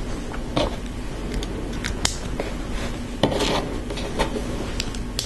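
Small plastic LEGO pieces being handled and pressed together: irregular sharp clicks and light clatter, with a short rough scraping rub about three seconds in.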